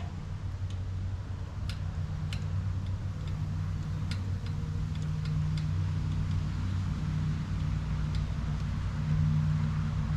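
Scattered light metallic clicks of a spark plug and wrench being fitted back into a small engine, over a steady low mechanical hum.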